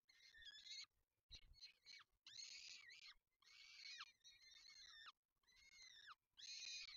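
Peregrine falcon chicks giving wheezy, high begging calls while being fed: a run of about seven calls, each under a second, many ending in a falling pitch.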